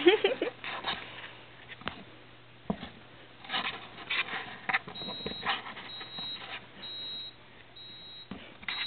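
A kitten scrabbling about inside a cardboard box: scattered scratches, taps and rustles of cardboard, with a short wavering vocal sound at the very start, the loudest moment. A faint high beep repeats about once a second through the second half.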